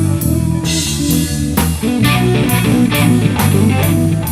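Live blues-rock jam: electric guitar playing over a steady drum kit beat and a bass guitar line, between the sung lines.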